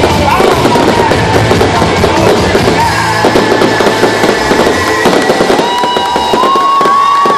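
Aerial fireworks crackling and popping continuously, with music playing underneath; held whistling tones come in during the second half.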